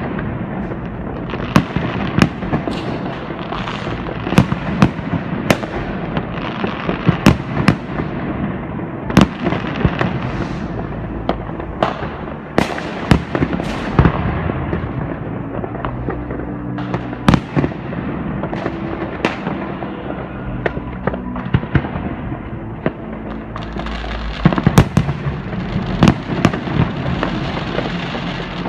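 Many fireworks and firecrackers going off at once: a continuous crackle with frequent sharp bangs throughout.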